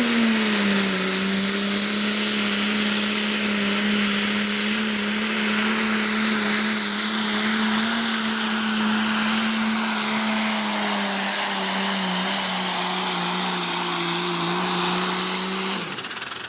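New Holland pro stock pulling tractor's turbocharged diesel engine running flat out under full load as it drags a weight-transfer sled, holding one steady pitch that sags a little in the last few seconds. Near the end the pitch falls away sharply as the pull ends and the engine comes off the throttle.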